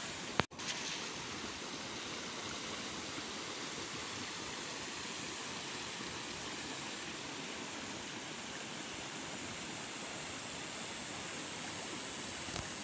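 Steady rush of flowing water, even and unbroken, with a brief drop-out about half a second in.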